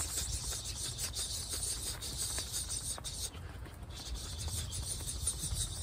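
Insects buzzing in a steady, high-pitched chorus that drops out for about half a second around three seconds in, over a low rumble.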